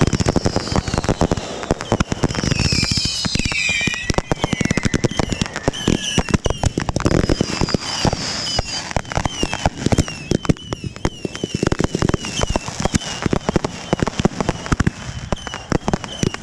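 Consumer fireworks going off at close range in a finale barrage: a dense run of sharp cracks and bangs, with high whistling tones gliding over them.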